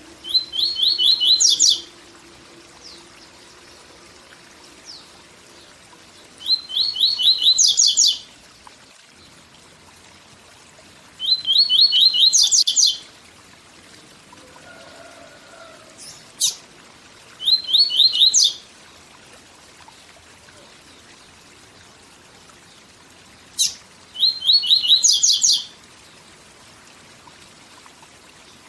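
Papa-capim seedeater singing its 'tui tui zel zel' song: five short phrases of quick repeated notes, several seconds apart, two of them opened by a single sharp note. Steady waterfall noise runs underneath.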